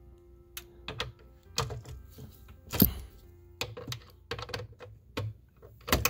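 Irregular clicks and knocks of a ratchet with a T50 Torx bit working on a seat belt anchor bolt, with one heavier knock near the middle. A faint steady tone sounds under the first second or so.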